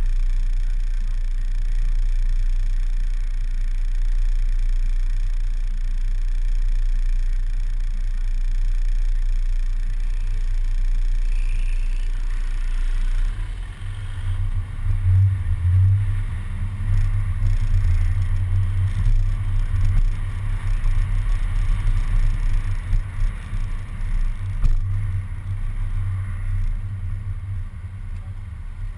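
Public bus idling at a standstill with a steady low hum, then pulling away about halfway through. Once it is moving, a louder, uneven low rumble of wind and road noise hits the camera mounted on the outside of the bus.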